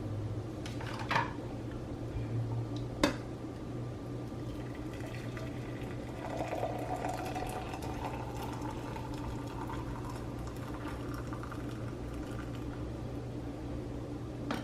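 Hot water being poured into a mug for tea, with the pitch of the stream rising slightly as the mug fills, over a steady low hum. There are a couple of sharp clicks near the start.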